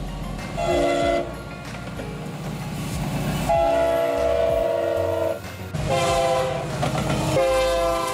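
Norfolk Southern SD60E diesel locomotive sounding its multi-chime air horn for a road crossing: a short blast, then long blasts, the last one a little lower in pitch as the locomotive passes. The diesel engines run under load beneath the horn.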